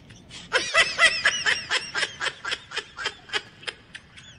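High-pitched snickering laughter: a quick run of short 'heh' pulses that starts about half a second in, then slows and fades away.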